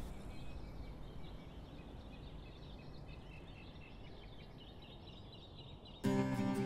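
Faint street ambience with small birds chirping over a low hum. About six seconds in, acoustic guitar music starts abruptly.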